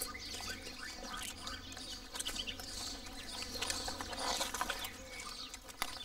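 Quiet outdoor field sound: scattered light clicks and rustles, with faint bird chirps.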